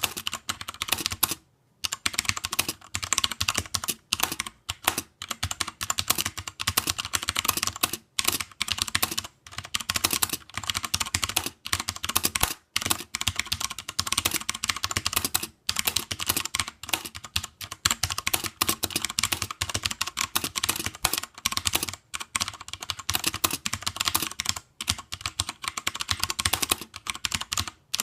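Fast continuous typing on a mechanical keyboard with Cherry MX Brown tactile switches, a dense run of key clicks with a few short pauses.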